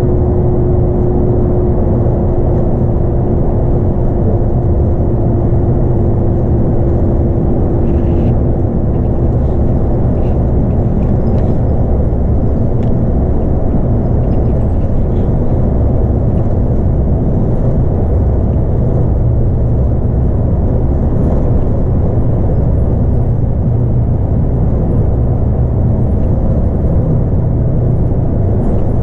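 Scania K310UB bus with its 8.9-litre five-cylinder Scania diesel and ZF Ecomat six-speed automatic, cruising steadily through a road tunnel, heard from the front of the cabin as a loud, even rumble of engine and tyre noise. A steady whine runs for the first nine seconds or so, then fades out.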